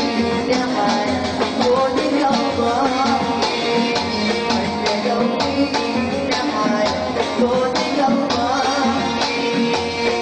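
Live Saudi shakshaka-style party music played by oud, keyboard and a hand-percussion ensemble, with a steady, busy beat.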